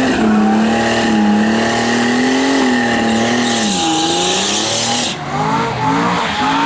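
Greddy twin-turbo Nissan 350Z V6 doing a burnout on slicks: the engine held at steady high revs while the rear tyres spin and squeal for about five seconds. Then the tyre noise stops and the engine revs up in a few short rises as the car rolls forward.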